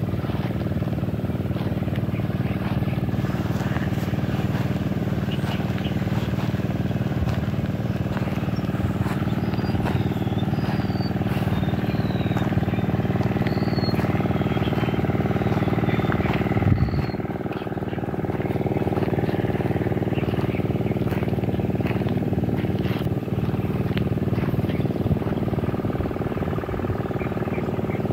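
An engine running steadily at one speed, with a single bump and a brief drop in level about two-thirds of the way through.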